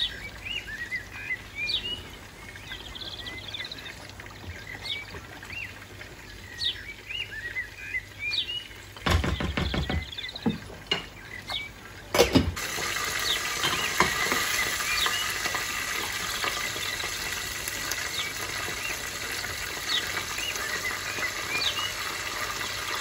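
Stovetop cooking: short high chirps run throughout over a soft background. About nine seconds in there is a brief clatter. A few seconds later the aluminium lid comes off the saucepan with a clink, and after that the boiling pot bubbles and hisses more loudly.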